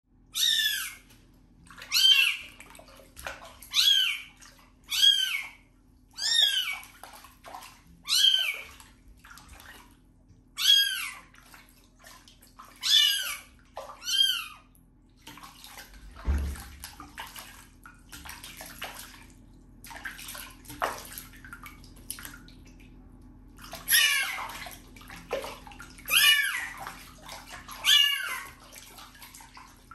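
Kitten mewing in distress while being bathed: about a dozen short, high-pitched mews, one every second or two, pausing in the middle and resuming near the end. Water sloshes and splashes around it as hands wash it, most plainly while the mewing pauses, with one low thump about sixteen seconds in.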